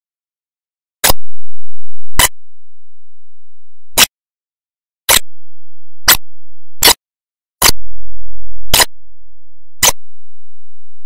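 A series of about nine sharp clicks, spaced unevenly roughly a second apart, with silence between them.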